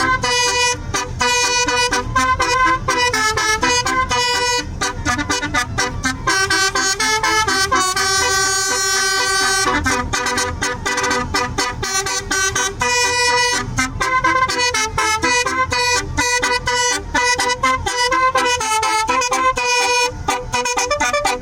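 Bus basuri musical horn playing a tune in quick, clipped horn notes, with a longer held chord about eight seconds in.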